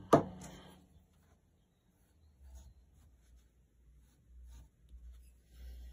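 A sharp knock at the start, then faint, irregular scratching from a graphite pencil drawing on cold-pressed watercolour paper from about halfway through.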